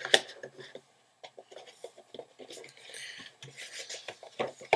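Cardboard packaging being handled: a sharp tap just after the start, scattered light knocks, and card and paper sliding and rustling as an insert is pulled out of the box.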